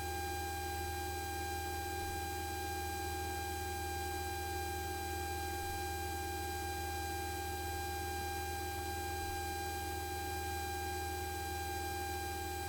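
Cessna 172's engine and cabin noise in the climb: a steady low drone with a thin, steady high tone above it.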